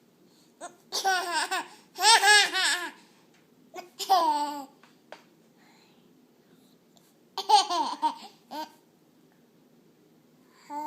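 Baby laughing in hiccuping bursts: three bouts of high-pitched, breathless laughter, each note dropping in pitch, with short silences between.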